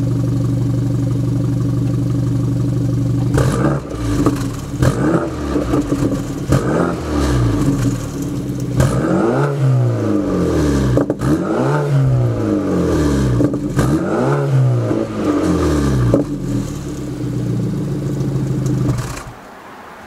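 BMW 428i's N20 2.0-litre turbo four-cylinder idling through a new AWE quad-tip exhaust, then revved in a string of quick throttle blips, each rising and falling in pitch, before settling back to idle; the sound cuts off suddenly near the end.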